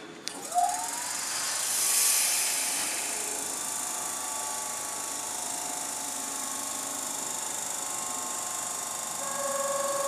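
Keihan electric train standing at a station: a sharp click, then a short rising whine that settles into a steady machine whine, with a burst of air hiss about two seconds in. Near the end a new steady tone comes in.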